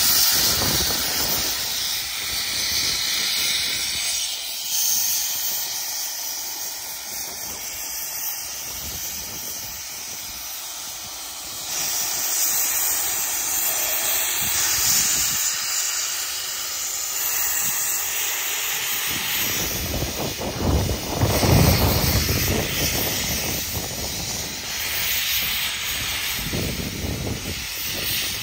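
JNR Class C62 4-6-4 steam locomotive blowing steam from its open cylinder drain cocks with a loud, continuous hiss. About two-thirds of the way through, a heavier, deeper rumble swells up beneath the hiss.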